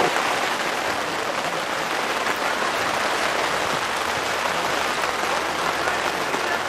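Rain falling steadily on an umbrella held over the camera, an even hiss with no breaks.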